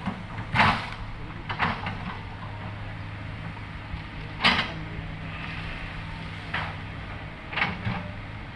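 SANY hydraulic excavator's diesel engine running steadily under load, with five sharp knocks and cracks spread through as the bucket works through brush and small trees.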